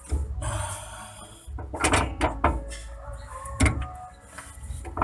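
Metal tools clanking and scraping against the differential during hand work, with several sharp knocks.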